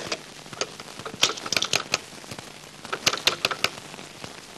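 Rotary desk telephone clicking in two bursts of quick clicks, its cradle hook switch pressed repeatedly: the line is dead and the phone is out of order.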